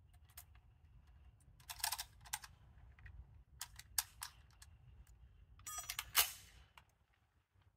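Romanian SKS being loaded from a stripper clip: scattered metallic clicks as cartridges are thumbed down into its fixed ten-round magazine. About six seconds in comes a quick rattle ending in a sharper, louder metallic clack.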